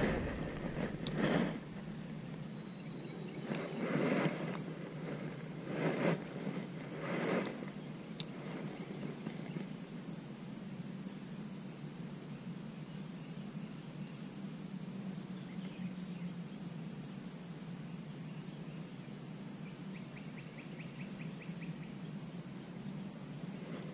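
Insects trilling, a steady high-pitched tone. A few brief rustles of handling come in the first several seconds, and there is one sharp click about eight seconds in.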